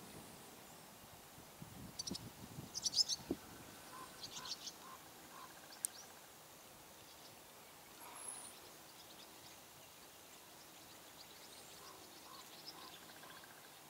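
Birds chirping and calling, with short high chirps and one falling whistle, over faint outdoor background. A few soft hoof thuds of a horse walking on arena dirt sound in the first few seconds.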